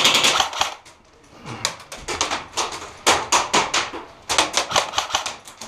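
Airsoft gunfire: several rapid bursts of sharp shots echoing in a small concrete room.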